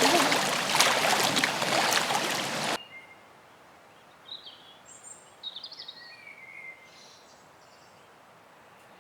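Steady rushing of running water that cuts off suddenly about three seconds in, leaving a quiet outdoor background with a few faint bird chirps.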